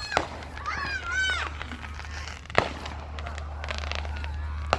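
Fireworks going off: a single sharp bang just past halfway, followed by a spell of crackling and another smaller crack near the end.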